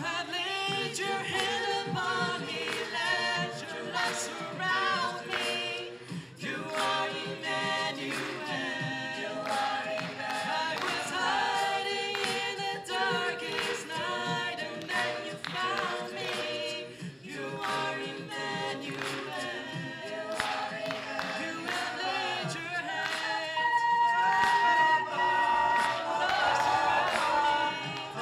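A cappella vocal group singing in close harmony, with no instruments: held chords from the lower voices under moving upper parts. About 23 seconds in, a high note is held for a couple of seconds, the loudest part.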